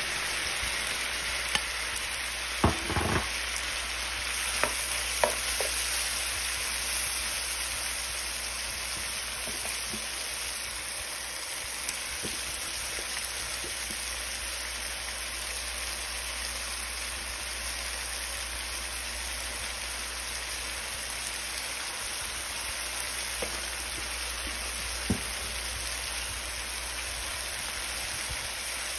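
Shrimp, scallops and onions sizzling steadily in butter in a pan, with a few light knocks in the first few seconds and one more near the end.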